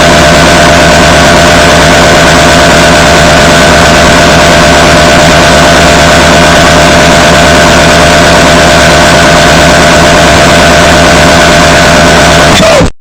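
Extremely loud, harsh distorted noise sound effect with a few steady tones held inside it, unchanging throughout and cutting off suddenly near the end.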